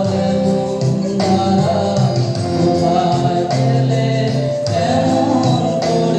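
A man singing into a handheld microphone over recorded backing music, both played through a PA loudspeaker.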